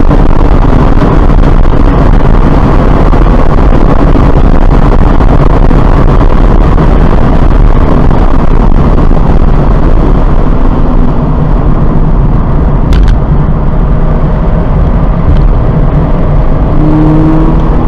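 Cabin noise of a 2017 Subaru BRZ at speed on a race track: its flat-four engine, tyre roar and wind at about 75 mph, easing from about ten seconds in as the car slows for a corner.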